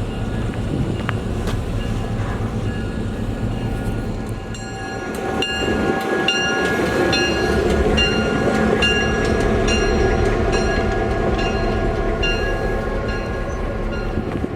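Train running with a steady low rumble. From about four seconds in, a bell rings about twice a second over it.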